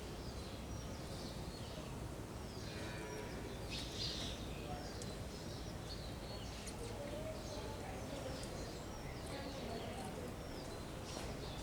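Sparrows chirping, many short high chirps coming one after another over a steady low background rumble.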